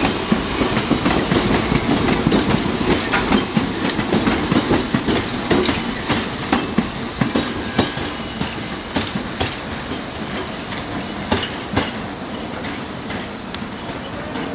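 New York City Subway 1 train of R62A cars running on elevated track: a steady rumble with wheels clacking over the rail joints in irregular sharp clicks, slowly fading.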